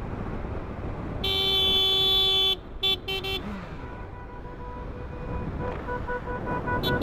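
Vehicle horn sounding one long blast of about a second and a half, then two short toots. A fainter, higher horn-like tone comes and goes after that, over motorcycle road and wind noise.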